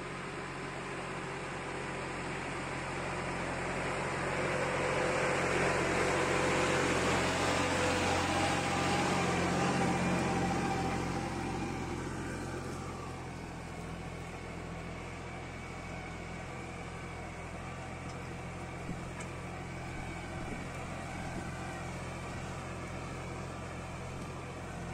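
Erkunt Kısmet 55e B orchard tractor's diesel engine running steadily under load as it pulls a nine-tine chisel cultivator through the soil. It swells louder for several seconds in the first half, then settles back to a steady level.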